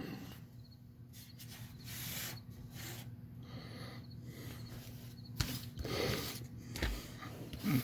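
Packaging being handled: uneven rubbing and scraping with a few knocks, about five and a half and seven seconds in, over a faint low steady hum.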